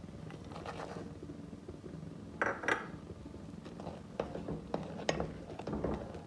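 Spoon stirring milk in an aluminium saucepan, clinking and scraping against the pan, with a louder clatter about two and a half seconds in and quick ticks near the end.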